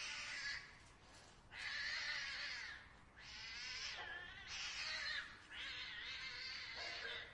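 Cats caterwauling in a fight: a run of about five drawn-out, wavering yowls with short breaks between them.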